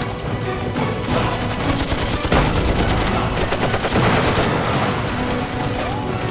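Rapid, dense gunfire, a fusillade of shots fired from a moving truck, starting about a second in and heaviest in the middle, over dramatic film-score music.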